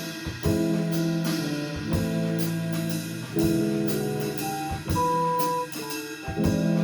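A small band playing a song in rehearsal: sustained chords over drum kit hits that land about every one and a half seconds, with a single high note held for about half a second near the end.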